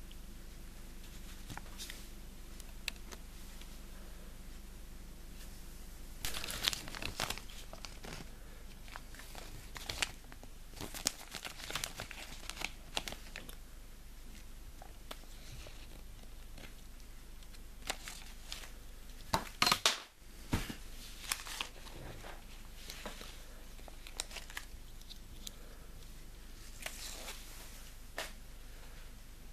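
Thin paper instruction leaflet from a Kinder Surprise egg crinkling and rustling as hands handle and unfold it, in scattered short bursts, the loudest about two-thirds of the way through.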